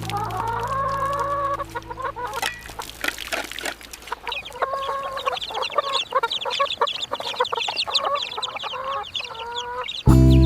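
A flock of chickens clucking, many short calls overlapping throughout. A loud, low, steady sound cuts in abruptly near the end.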